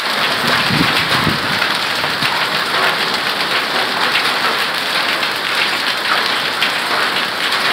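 Heavy rain mixed with marble-sized hail pelting a concrete patio and lawn: a loud, dense, steady patter of many small impacts. A couple of low thumps sound about a second in.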